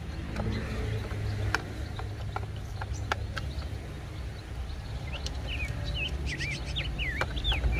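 Scattered light clicks and taps of a plastic toy train being handled while its battery cover is unscrewed and taken off. Birds chirp in the background from about five seconds in, over a steady low rumble.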